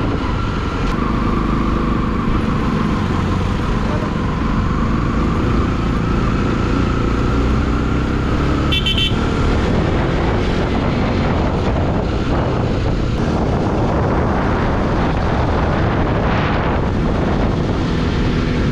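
Motorcycle engine running steadily under way, with road and wind noise. A short vehicle horn toot sounds about nine seconds in.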